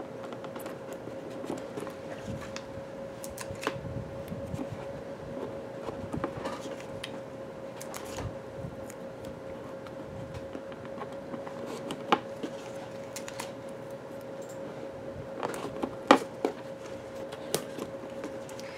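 Hands peeling double-stick foam squares and pressing them onto a cardboard ring: light rustling with scattered small taps and clicks, over a steady hum.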